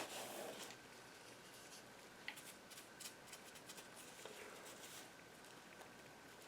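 Faint handling sounds from working on a bird skin: a short rustle at the start, then scattered small clicks and soft rustles.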